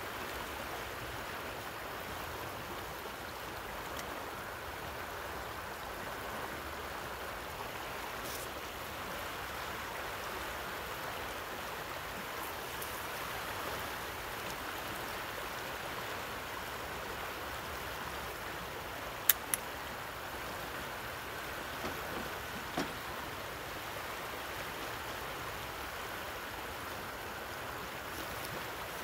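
Fast, rough river current rushing steadily. Two sharp clicks close together about two-thirds of the way in, and a fainter knock a few seconds later.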